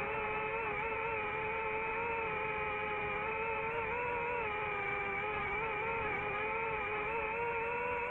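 DJI FPV drone's motors and propellers whining steadily in flight, a buzzing tone whose pitch wavers slightly as the drone banks and turns.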